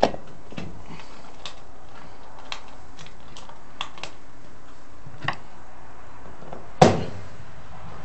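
Scattered clicks and knocks from hands fitting a power-cord wire onto a clothes dryer's terminal block, with a sharp knock right at the start and the loudest knock about seven seconds in, over a steady background hiss.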